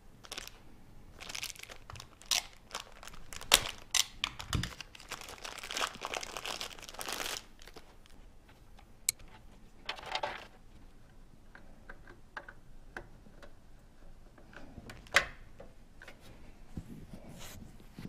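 SATA cables being handled and plugged in inside a PC case: rustling with scattered clicks and knocks, busiest in the first seven seconds, with a sharp click about fifteen seconds in. Plastic packaging crinkles near the end.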